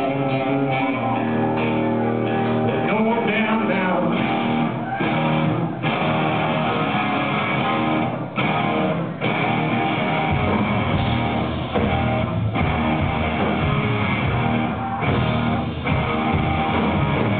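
Stoner rock band playing live: electric guitars, bass and drums. The low end gets heavier about ten seconds in.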